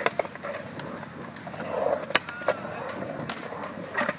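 Skateboard wheels rolling through a concrete bowl, with a few sharp clacks as the board and trucks hit the concrete, the last pair near the end.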